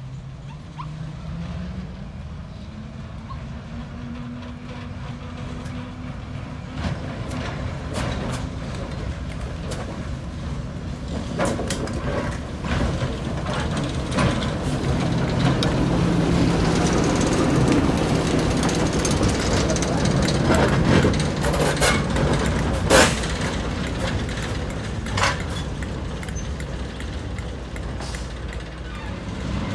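Class 08 diesel shunter's six-cylinder English Electric engine working, its note rising in the first couple of seconds. It grows louder toward about two thirds of the way through, then eases off, with sharp metallic clicks and clanks, one loud one near the end.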